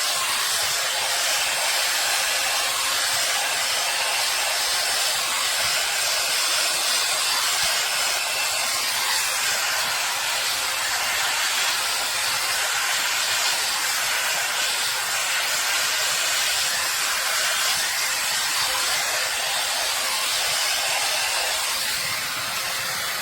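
Hair Trends Nano Titanium dual-voltage hot air brush running steadily, its fan blowing a constant rush of air with a faint steady hum.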